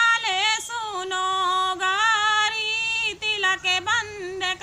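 A woman singing a tilak geet, a wedding folk song, unaccompanied, in a high voice with long held, wavering notes and short breaks between phrases near the end.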